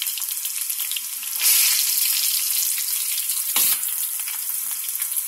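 Cornflour-coated corn kernels deep-frying in hot oil, a steady crackling sizzle that swells briefly about a second and a half in. One short knock comes a little past the middle.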